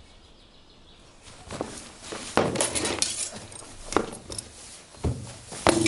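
Sword-fighting bout: a quick run of sharp clashes as swords strike each other and the shields, starting about a second and a half in, with feet shuffling in straw between blows.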